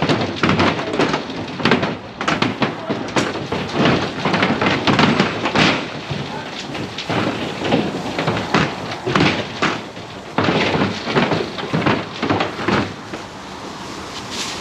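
Cattle hooves clattering and stamping on a livestock trailer's ramp and floor, with irregular knocks and bangs as the animals load. The clatter is busy and eases off near the end.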